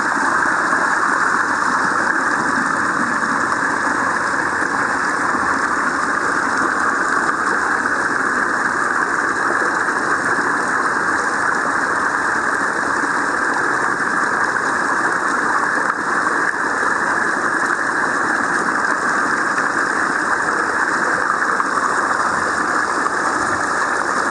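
Steady rush of shallow water running over a concrete slope and pouring from a drain culvert.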